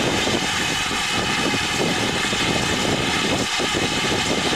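GWR 7800 Manor class 4-6-0 steam locomotive standing ready to depart, with steam hissing steadily and an uneven low rumble underneath.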